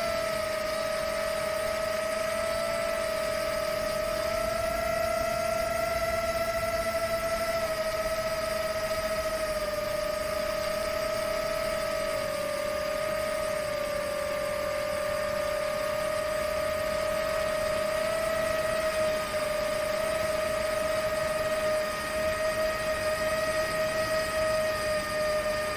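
Rekon 5 six-cell long-range FPV quadcopter's motors and propellers whining steadily in cruise, heard from the camera mounted on board, with wind rush. The pitch drifts gently with throttle, and the sound flutters briefly about two-thirds of the way through.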